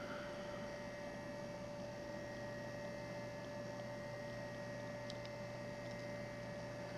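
A steady, low electrical hum over quiet room tone, with two faint ticks about five seconds in.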